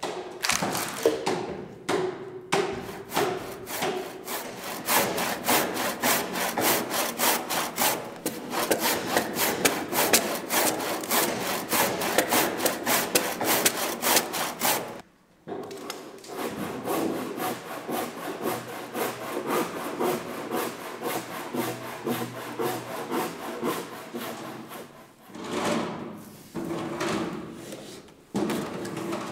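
Hand sawing into a wooden timber beam: a fast, even run of scraping saw strokes. It stops abruptly about halfway through, resumes, and ends in a few softer strokes.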